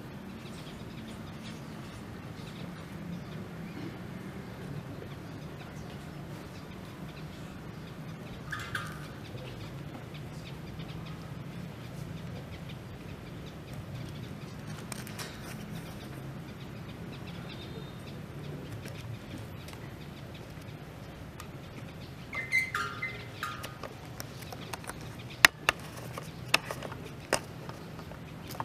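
Quiet outdoor ambience with a steady low hum, a bird calling briefly about nine seconds in and again a few seconds before the end, then a handful of sharp clicks near the end.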